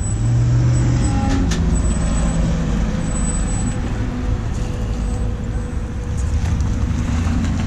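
Steady low rumble of a motor vehicle engine idling, with a couple of brief clicks about a second and a half in.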